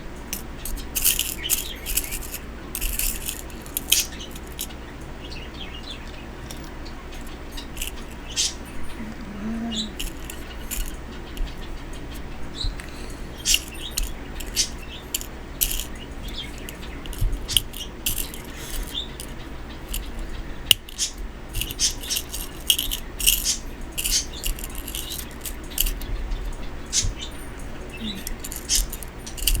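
Small metal craft pieces clicking and jingling as they are handled, in irregular clusters of light clicks, busiest near the start and again in the second half.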